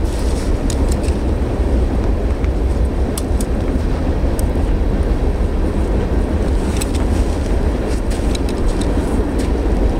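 Steady low rumble of wind buffeting the microphone outdoors, with a few faint clicks scattered through it.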